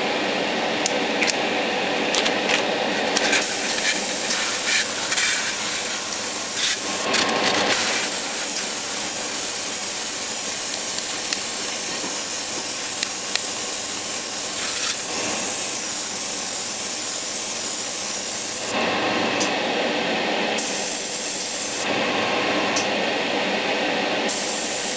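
Airbrush spraying Alclad II lacquer chrome, its hiss coming and going in bursts over a steady mechanical hum from the air supply. A few light clicks sound in the first few seconds.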